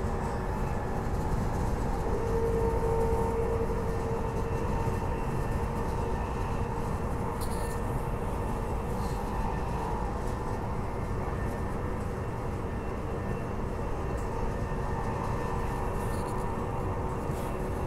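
Transperth B-series electric train running at speed, heard from aboard: a steady rumble of wheels on rails under a constant electric hum, the hum briefly louder about two to four seconds in. A few faint clicks.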